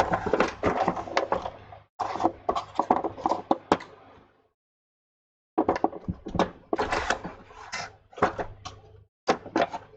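A metal hand tool clicking and scraping against the metal shield on an iPad Air 2 logic board as the shield's edge is pried up. The sound comes in irregular runs of sharp clicks and scrapes, with a pause of about a second in the middle.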